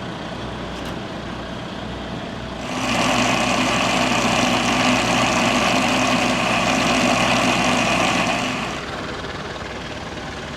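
Tractor engine running. About three seconds in it revs up and holds louder for about six seconds, then drops back to a lower steady speed.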